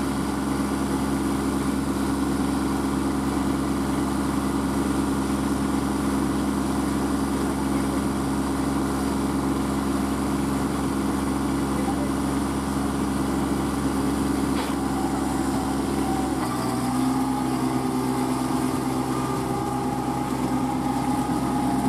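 Small tractor diesel engines, a Kubota B2441 mini tractor's and a second tractor's, running steadily while the cage-wheeled Kubota is stuck in deep paddy mud. About 16 seconds in, the engine note changes.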